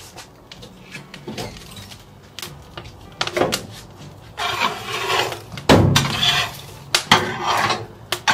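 Split hardwood chunks are tossed onto a steel fire basket, giving several sharp wooden knocks and clatters against the metal. The loudest knock comes a little past halfway.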